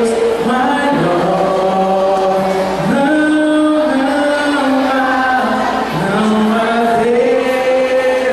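A man singing a slow Portuguese worship chorus into a microphone, amplified through a loudspeaker, holding long notes that step up and down in pitch.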